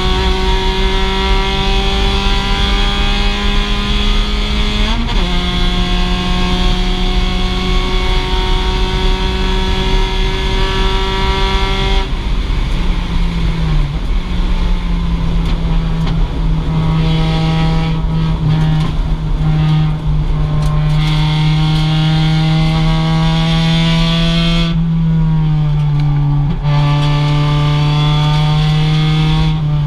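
Mazda MX-5 race car's stock 2.0-litre four-cylinder engine running hard, its pitch climbing slowly under throttle. There is a brief blip and shift about five seconds in. The pitch steps down twice, around twelve seconds in and again near the end.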